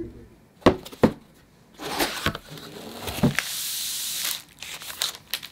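Plastic bubble-wrap packaging and paper packets being handled: crinkling and rustling, with several sharp taps and one longer sliding rustle a little past halfway.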